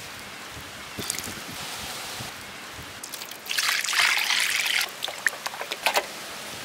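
Water poured from above onto cut eel pieces in a steel plate to wash them, splashing for about a second and a half, then a run of short sharp splashes and drips as wet hands work over the plate.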